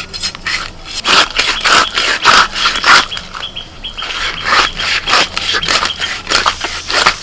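Repeated rasping scrapes, at an uneven pace, as the thick-scaled body of a large katla fish is pushed against a boti blade to cut it into pieces. The large, stiff scales crackle as the blade goes through them.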